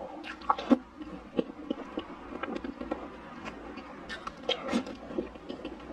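Close-miked mouth sounds of eating soft chocolate mousse cake: wet smacks and chewing clicks at an irregular pace, with a few sharper clicks about half a second in and again around four and a half to five seconds in.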